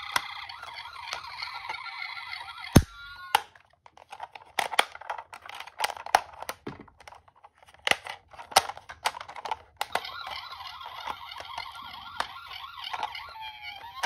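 Toy ambulance's electronic siren warbling from its small speaker, cut off with a sharp click about three seconds in. Scattered plastic clicks and taps follow as its toy doors are opened and closed, and the siren starts again about ten seconds in.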